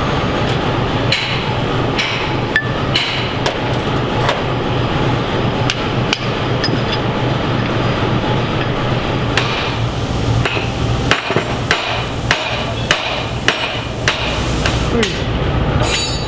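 A hand hammer strikes metal fittings in a string of irregular, sharp blows, coming thickest in a quick run about two-thirds of the way through. A steady low hum runs underneath.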